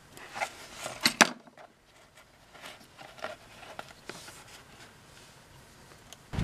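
Hands handling a leather pouch, its cord and a disposable lighter: scattered small clicks, taps and rustles, with a cluster of sharp clicks about a second in.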